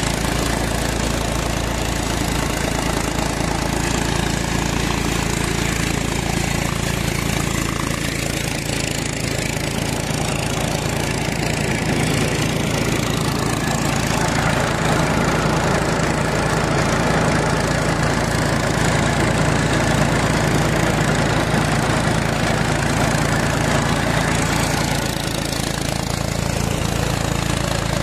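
Mahindra 295 tractor's diesel engine running steadily under full load, driving a five-fan paddy thresher whose drum and fans add a dense, steady rushing noise over the engine note.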